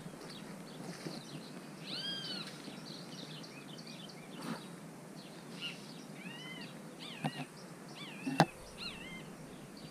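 A bird calling in short arched notes, a few at a time, about two, six and eight seconds in. A sharp click sounds about eight seconds in and is the loudest thing.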